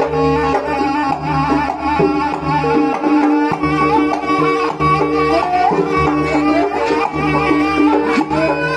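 Javanese jaranan accompaniment playing loudly: hand-drum strokes over steady held gong-like tones, with a wavering melody line on top.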